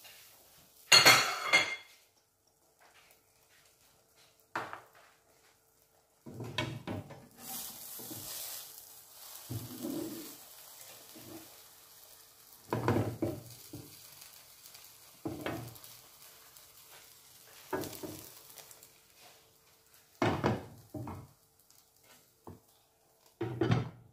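Kitchen utensil knocking and scraping against a non-stick frying pan as an omelette is folded, with a faint sizzle from the pan. The loudest clatter comes about a second in. Near the end there is a knock as a glass lid goes onto the pan.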